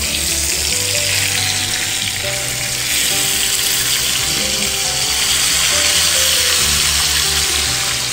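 Pomfret fish shallow-frying in groundnut oil on an iron dosa griddle, sizzling steadily and growing a little louder about three seconds in.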